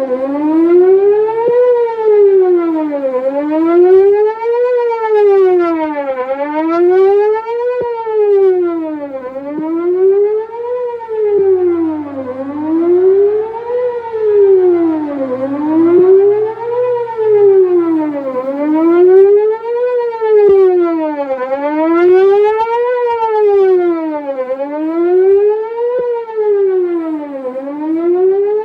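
Whelen WPS 4008 electronic outdoor warning siren sounding its Best Possible Protection tone: a loud, fast wail whose pitch rises and falls evenly, about once every two seconds.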